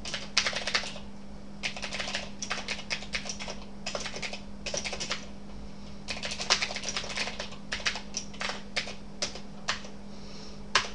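Typing on a computer keyboard: runs of rapid keystrokes broken by short pauses, over a steady low hum.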